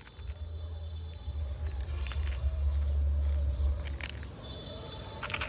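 A few crisp crunches as teeth bite into a wafer ice cream cone, about two, four and five seconds in, over a steady low rumble.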